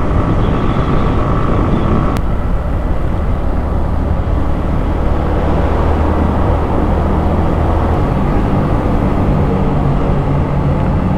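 Suzuki Gixxer single-cylinder motorcycle engine running at a steady cruise, under heavy wind and road noise, inside a road tunnel.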